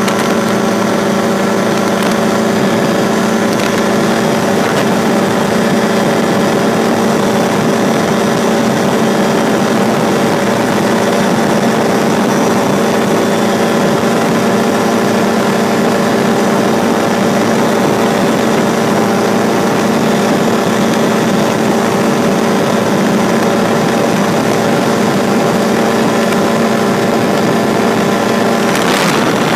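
Drifter ultralight aircraft's two-stroke engine and propeller running steadily at a constant pitch in flight.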